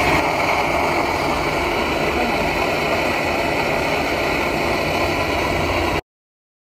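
Kovea Booster +1 butane stove burning under a pot, a steady rushing flame noise that cuts off suddenly about six seconds in.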